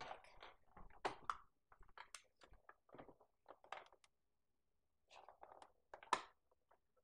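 Faint taps, clicks and rustles of hands handling a toy kitchen set and pressing small pieces into place, with the sharpest clicks about a second in and near the end.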